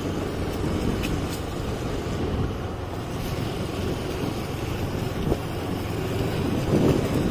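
Two-wheeler running at a steady pace, engine hum mixed with wind buffeting the microphone while riding on an unpaved road.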